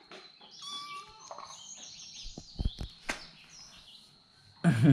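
A frightened young tabby kitten mewing: thin, high-pitched cries repeated through most of the stretch, with a few soft knocks around the middle and a short low voice-like sound right at the end.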